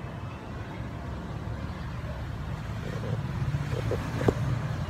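Low, steady rumble of a motor vehicle engine, growing slightly louder, with one sharp click about four seconds in.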